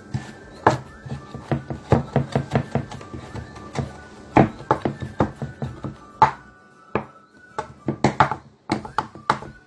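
Fresh mint being chopped with a knife: quick, uneven chopping strokes a few a second, with a short pause about two-thirds through, over background music.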